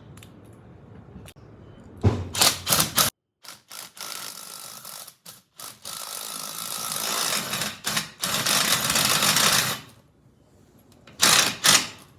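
Power driver turning a Gator Grip universal socket to drive fasteners. A short burst comes about two seconds in, then a longer run from about four to ten seconds that grows louder as the fastener goes in, and another short burst near the end.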